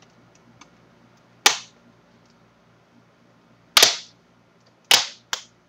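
Plastic snap-in clips of a Samsung NP550P5CL laptop's screen bezel popping loose as the bezel is pried off by hand. Four sharp snaps: one about a second and a half in, one near four seconds, and two close together near the end.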